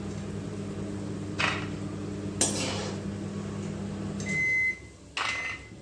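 A kitchen appliance's motor hums steadily and then switches off about four seconds in, followed by two high electronic beeps. Two utensil clinks come earlier, about a second and a half and two and a half seconds in.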